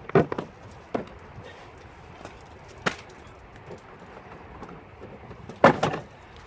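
A few sharp knocks and clicks, the loudest cluster near the end, as a car's rear bumper retaining fastener is pressed and worked loose by hand.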